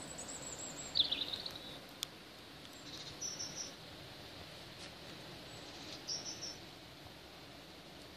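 Small birds calling over a steady hiss of rain and wind: a thin high wavering note at the start, a loud burst of chirps about a second in, then short runs of high chirps about three seconds apart.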